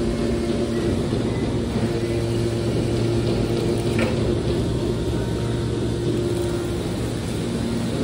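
Hydraulic scrap metal baler's power unit running: a steady electric-motor and pump hum with a higher tone that comes and goes, and a short click about four seconds in.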